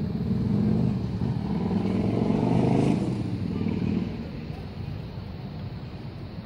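A motor vehicle driving past. Its engine rumble builds to a peak about three seconds in and then fades away.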